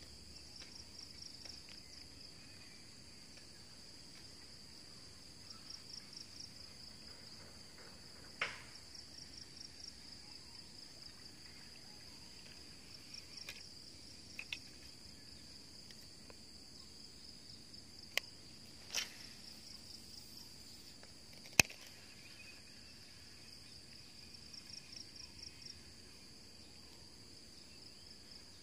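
Insects chirping: a steady high-pitched drone with short pulsed trills that come and go every few seconds. Several sharp clicks stand out above it, the loudest about three-quarters of the way through.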